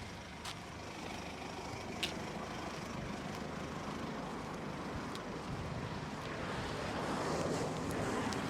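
Road traffic noise: a vehicle passing, growing louder about seven seconds in and then easing off.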